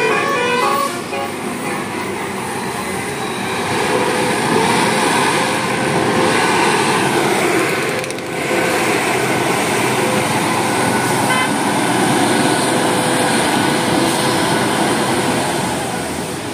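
A bus's multi-tone telolet musical horn ends its tune about a second in, followed by loud, steady engine and road noise from heavy vehicles passing, with a brief lull about halfway through.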